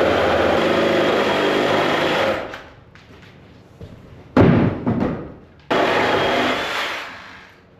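A power saw runs steadily with a whining motor for about two and a half seconds. A loud knock or crash comes about four and a half seconds in. The saw then runs again briefly and winds down.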